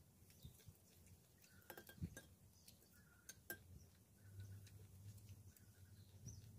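A few faint, sharp clinks of a metal spoon against a ceramic plate of rice while eating, the loudest about two seconds in.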